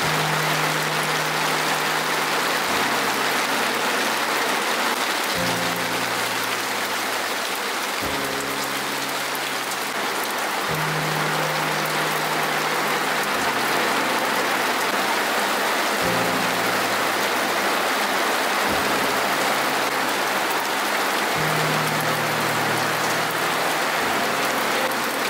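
Steady rain falling on and around a tent, with soft background music underneath whose low held notes change every two to three seconds.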